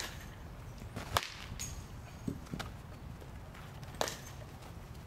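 Baseball bat striking a ball off a batting tee: a sharp crack about a second in, then a few fainter knocks. Another sharp click comes near the end.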